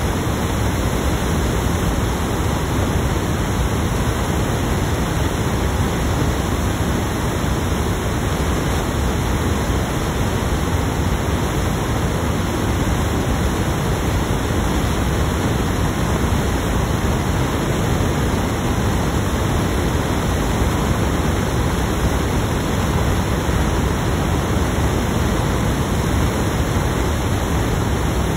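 Steady loud hiss of recording noise, even and unchanging, drowning out the voice: a fault in the audio recording.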